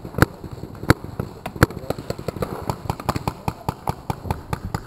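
Paintball markers firing: three loud, close shots about two-thirds of a second apart in the first two seconds, then a fast, irregular crackle of many fainter shots from across the field.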